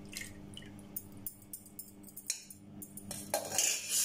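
Irregular metallic clinks and taps of a steel tea strainer and steel bowl being handled, busiest and loudest in the last second.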